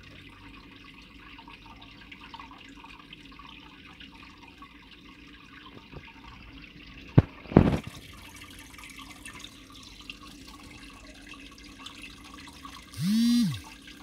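Double-cascade aquarium filter pouring its outflow into the tank: a steady splashing trickle with air bubbling. The filter is freshly cleaned and throwing more water. Two sharp knocks come just past the middle, and a short tone that rises and falls comes near the end.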